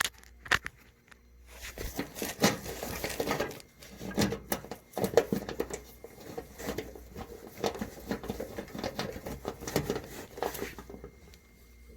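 Irregular clicks, taps and scraping of tools and parts being handled while a Kenmore HE3 Elite gas dryer is reassembled. The sounds come close together and quiet down in the last second.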